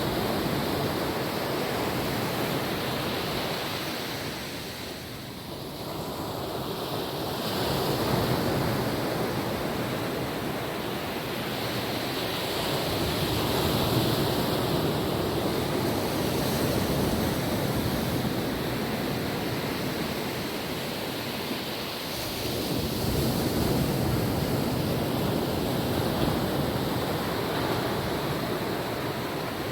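Small waves breaking and washing up on a beach, the surf swelling and easing every few seconds, with some wind on the microphone.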